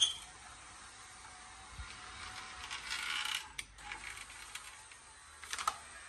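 Power window motor and new aftermarket regulator in a 2003–06 Chevy Silverado rear door, driving the glass down and back up on a test run, with a sharp click at the start and more clicks along the way.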